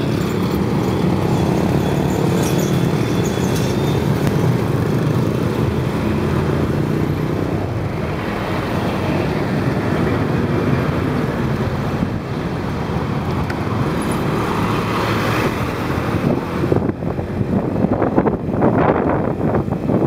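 Motorbike engine running amid city traffic, with cars and other motorbikes passing. Near the end, wind buffets the microphone in uneven gusts as the bike rides along.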